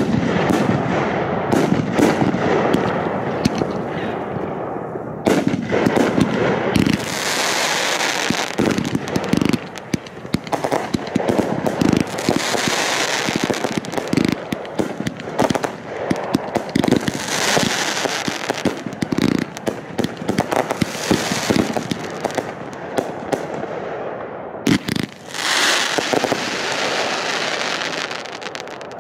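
Fireworks going off without a break: dense crackling and sharp pops, with hissing swells that come and go every few seconds.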